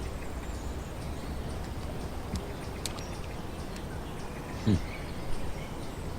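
Outdoor ambience: a steady low background noise with a few faint ticks and one brief falling call about four and a half seconds in.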